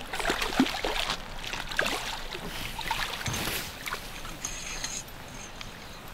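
Water splashing and sloshing as a hooked trout thrashes at the surface and is scooped into a landing net, the splashes dying away about five seconds in.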